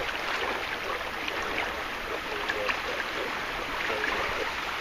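Steady rush of fast-flowing water around a canoe running down a canoe pass, the quick, broken-water bypass channel beside a lock.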